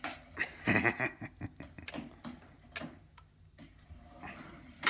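Remote-controlled robot on a power-wheelchair drive base starting to move: a short burst of motor whir about a second in, among scattered clicks and ticks.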